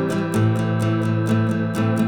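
Background music led by a plucked guitar, with a steady beat of about four to five strokes a second.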